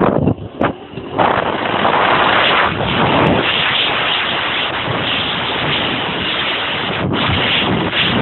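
Kymco 125cc scooter accelerating hard, its engine buried under a loud, steady rush of wind over the microphone. The sound is choppy for about the first second, then holds steady.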